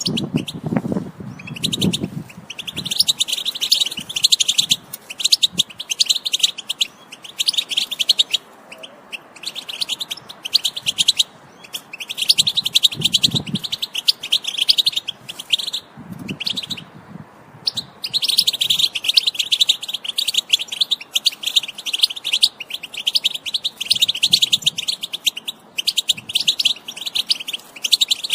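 European goldfinch singing: long bouts of fast, twittering song broken by short pauses.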